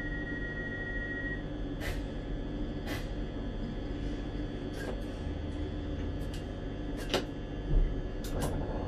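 Driver's cab of a Regio 2N (Z 57000) electric train under way: a steady low running rumble with scattered sharp clicks and knocks. A steady high tone stops about a second and a half in, and a low thump comes near the end.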